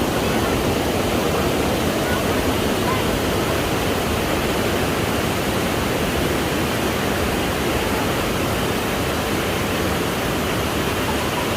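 Steady rush of flowing water, an even noise that does not let up.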